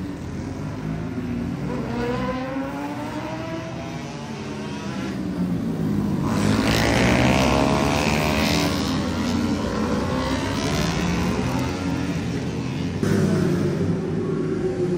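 Racing motorcycles at a street race powering through a corner one after another. Several overlapping engine notes rise and fall as the bikes rev and pass, loudest about halfway through.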